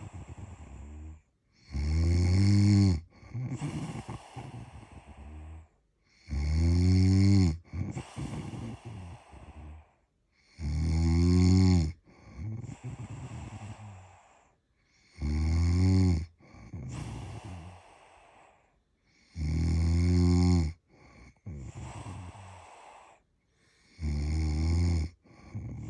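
Someone asleep snoring loudly, six snores about four and a half seconds apart, each with a softer, breathy out-breath between.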